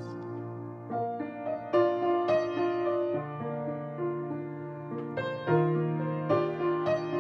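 Piano music: a slow melody over held chords, with new notes struck every half second to a second.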